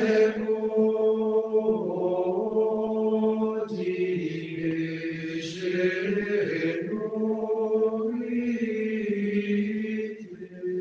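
Intro music of slow sung chant: long held vocal notes that move to a new pitch every second or two, fading out near the end.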